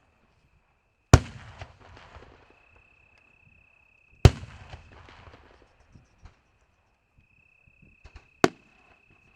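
Aerial fireworks shells bursting: two loud bangs about three seconds apart, each trailed by crackling that dies away, then a quick cluster of sharper reports near the end.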